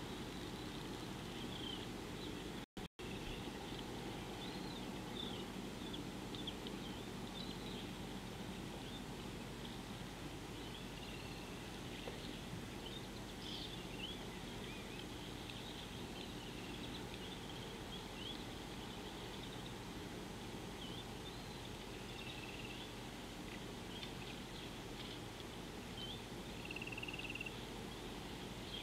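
Wild birds calling: many scattered short chirps and whistles, some overlapping, over a steady low background noise. A short held whistle comes near the end, and the sound cuts out twice briefly about three seconds in.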